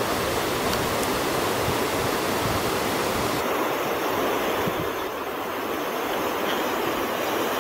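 Whitewater mountain stream rushing over boulders and fallen logs: a steady, even rush of cascading water.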